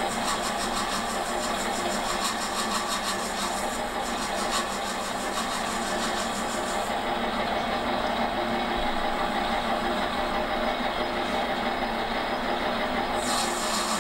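Metal lathe running steadily while turning a brass gear blank down to diameter. A steady machine hum with a hiss on top, which thins out about halfway through and comes back near the end.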